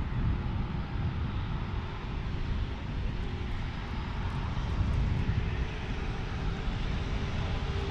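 Jet airliner engines running, a steady rumble with a faint whine that rises slowly in pitch.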